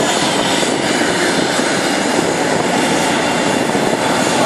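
Bombardier CRJ-900 regional jet's twin rear-mounted turbofan engines running at taxi power as the aircraft rolls past, a steady loud jet rush with a faint high turbine whine.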